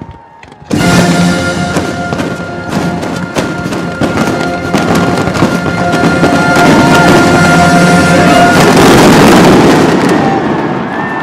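Aerial fireworks bursting in rapid succession over show music with long held notes, starting suddenly about a second in after a brief lull. Near the end the bangs merge into a dense, loud crackle as the music drops out, then it eases off.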